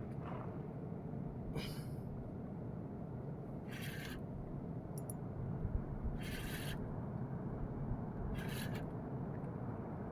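Steady low rumble of wind on the microphone at sea, broken about every two seconds by a short hissing scrape, four in all, while a fish is still being fought on the line.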